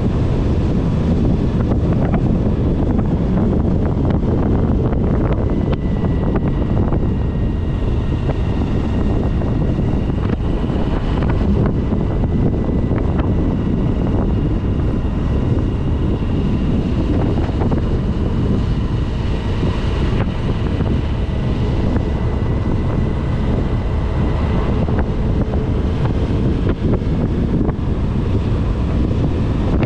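Wind rushing hard over the microphone of a Suzuki V-Strom 1000 motorcycle riding at road speed, with the V-twin engine running underneath and a faint steady high whine.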